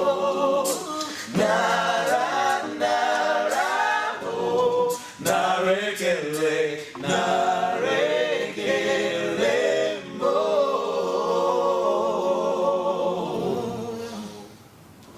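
A cappella vocal group singing in close harmony, several voices without instruments. The last chord is held and fades away near the end.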